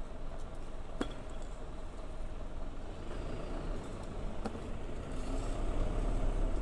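A motor vehicle's low, steady rumble, growing louder near the end, with two sharp clicks.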